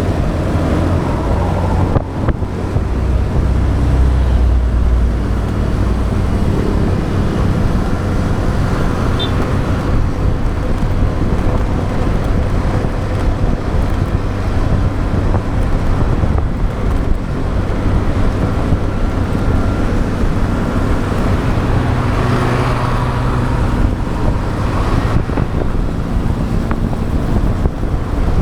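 Riding a motorbike on a road in traffic: the bike's engine running, with wind buffeting the action camera's microphone as a steady, loud, deep rumble. The engines of passing traffic come and go.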